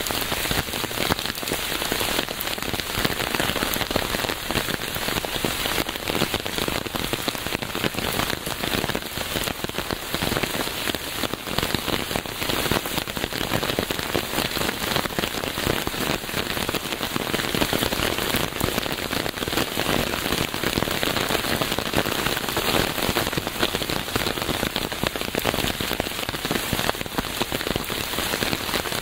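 Steady rain falling on a surface, a dense even patter of many drops.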